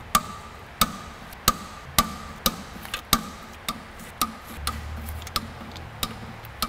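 Torque wrench clicking in a steady rhythm, about a dozen clicks at roughly one every 0.6 s, as the clutch pressure plate bolts are tightened to 35 ft-lb.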